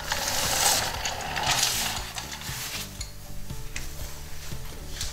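Aerosol brake cleaner spraying onto a snowmobile's brake caliper and disc to flush out dirt and brake dust: one long hissing burst over the first two seconds, then a few fainter short spurts.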